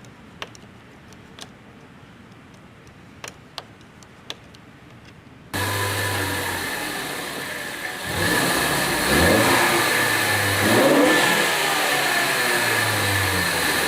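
A few light clicks and taps of hands and tools working on parts. About five and a half seconds in, the sound switches abruptly to a loud car engine running, with the engine revving up and down twice near the middle and a steady high whine over it.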